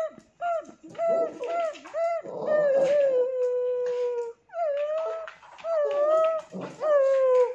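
Small dog whining and howling: a run of short high whines, then long, slowly falling howls, broken by a brief pause about halfway through.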